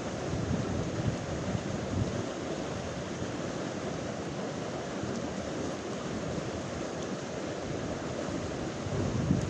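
Steady rush of open water, with wind buffeting the microphone in the first couple of seconds and again near the end.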